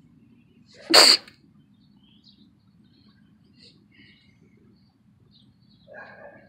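A person sneezing once: a single sharp, loud burst about a second in.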